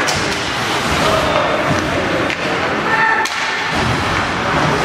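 Ice hockey play: sharp thuds of the puck and players against the rink boards, several times, over the steady noise of the arena, with a short pitched cry about three seconds in.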